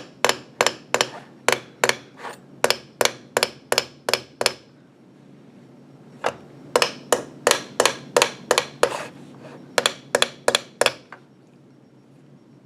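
Light hammer taps on the end of a wire held in a clamp, about three a second, flaring the wire's end into a rivet head. The tapping pauses for about a second and a half near the middle, and stops shortly before the end.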